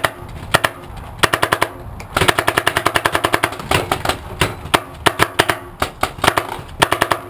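Paintball markers firing: scattered sharp pops and short strings of shots, with a fast run of about ten shots a second lasting roughly a second, starting about two seconds in.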